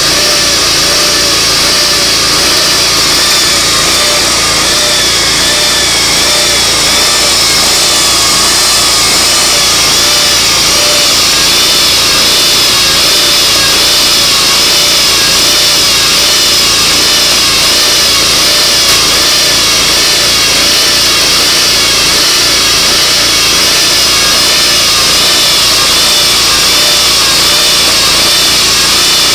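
Portable sawmill running steadily at working speed, its engine and saw giving a constant loud noise with a high whine that wavers up and down in a slow, regular wobble.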